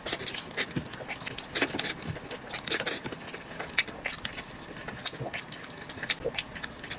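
A person eating fast into a close microphone: a dense, irregular run of crunchy bites, wet smacks and chewing clicks.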